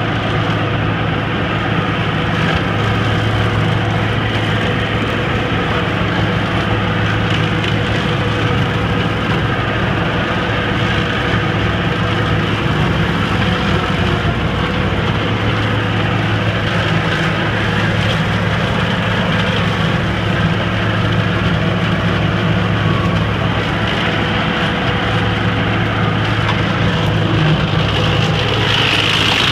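John Deere 3720 compact tractor's diesel engine running steadily under load while its Fieldmaster GMM180 gear mower shreds gorse and scrub, wood splintering through the constant engine drone.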